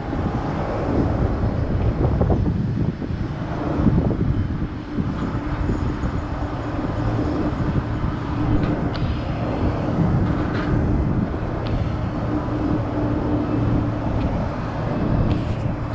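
Airport ambience: a steady low rumble of aircraft and ground traffic, with a steady hum setting in about four seconds in.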